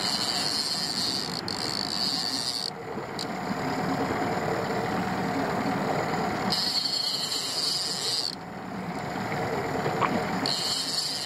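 Boat's outboard motor running steadily at trolling speed, with water and wind noise over it; a high hiss comes and goes three times.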